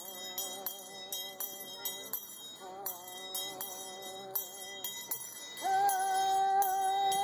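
A woman singing an Indian Shaker song in long held notes, accompanied by handbells rung in a steady beat of about three strokes a second. A louder, longer held note begins a little past the middle.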